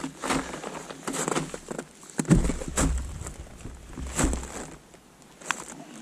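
Irregular knocks, thumps and rustling of someone handling ballistic gel blocks on a table and moving about, with a few heavier thumps in the middle.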